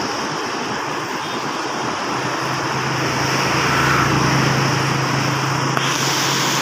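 Fast muddy floodwater rushing, a steady roar. From about two and a half seconds in, a steady low engine hum runs under it, and near the end the rush grows louder and brighter.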